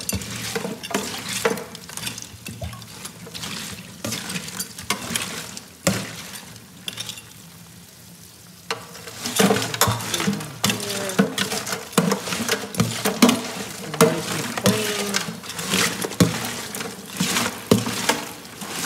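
A kitchen sink sprayer hisses over a sinkful of live crawfish while a hand stirs them. Their shells clatter and click against each other and the stainless steel sink. The sound eases off for about three seconds near the middle, then picks up again.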